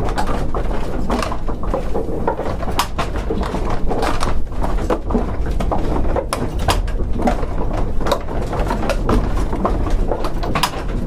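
Pigeons cooing in an enclosed space, with many scattered clicks and taps over a steady low rumble.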